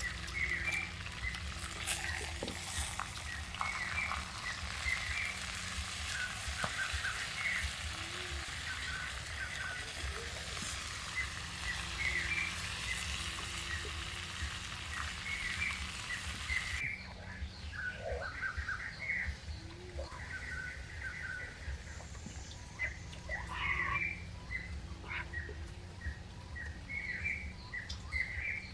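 Small birds chirping repeatedly in forest ambience, over a steady low rumble. A dense high hiss under the chirps cuts off abruptly about seventeen seconds in.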